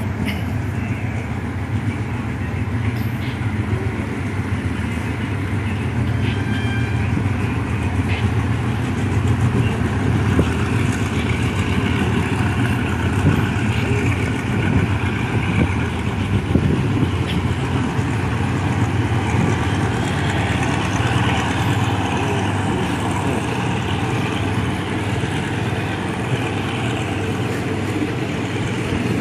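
Diesel engine of a standing passenger train idling: a steady low drone that holds unchanged throughout.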